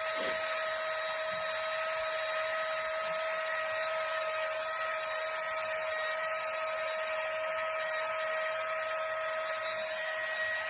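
Flextail Tiny Pump 2 mini electric air pump running steadily in blow mode to inflate, a constant high whine over a rush of air.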